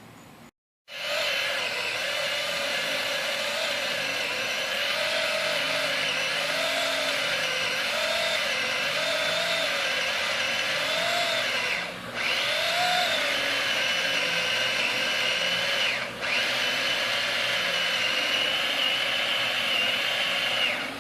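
Chainsaw cutting through a tree limb, its motor pitch rising and falling about once a second as it works through the wood, easing off briefly twice.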